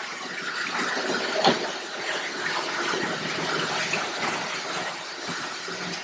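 Chamberlain LiftMaster Professional half-horsepower garage door opener running steadily as it lowers a sectional garage door, with one sharp knock about a second and a half in. The sound eases off near the end as the door closes.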